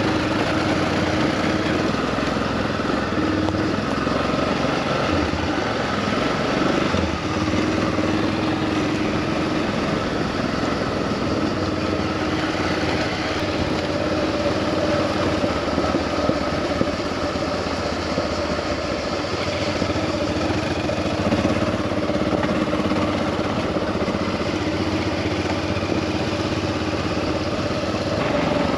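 Single-cylinder dual-sport motorcycle engine running at a steady low trail speed, heard from on board the bike, its pitch shifting slightly with the throttle.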